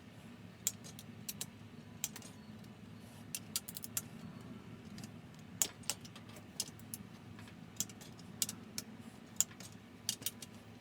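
Torque wrench clicking as it is worked over the crankshaft bearing cap bolts of a D16 engine block at 38 ft-lb, a re-check pass over the bolts. Sharp metallic clicks come one at a time and in small clusters, irregularly, about one or two a second, over a steady low hum.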